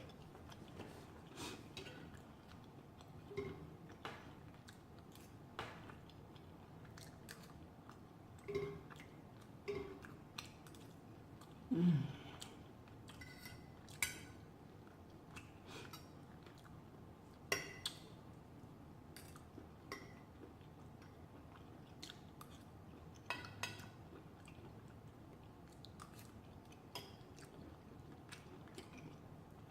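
A person chewing food close to the microphone: quiet wet mouth sounds with scattered short clicks. A brief low hum comes about twelve seconds in.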